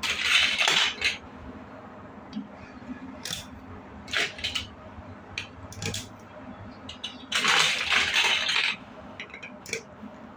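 Small plastic building-block pieces being handled: two spells of rummaging and rattling through loose pieces, one at the start and one about seven seconds in, with scattered single clicks of pieces being picked up and pressed together between them.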